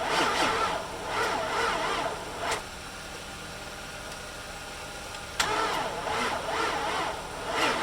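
Infiniti FX45's 4.5-litre V8 being cranked slowly by the starter and not firing, in two bouts: the first stops about two and a half seconds in, a steady quieter hum follows, and the cranking starts again abruptly about five seconds in. The slow crank, even on a jump, sounds like a bad battery.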